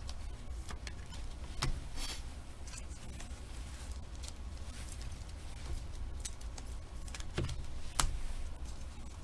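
Trading cards and foil pack wrappers being handled: scattered light clicks and rustles, with a couple of sharper snaps, over a steady low hum.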